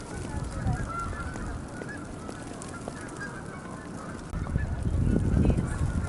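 Many short honking calls from a flock of birds, heard at a distance. Low rumbling grows louder from about four seconds in.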